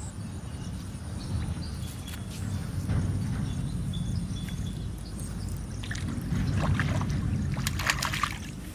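A hooked fish thrashing at the pond surface as it is hauled in on a bamboo pole and line: a run of splashes in the last three seconds, over a steady low rumble.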